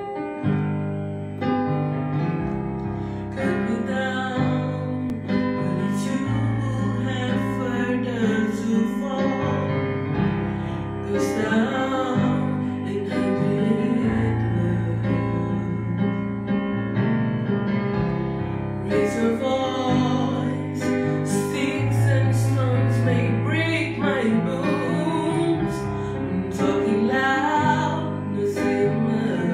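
M-Audio digital piano playing chords and a melody, with a woman singing along from about three seconds in.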